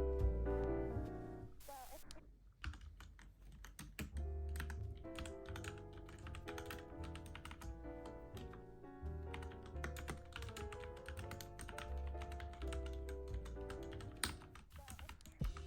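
Mechanical keyboard typing: rapid, irregular key clicks that start a couple of seconds in and keep going. Background music plays throughout.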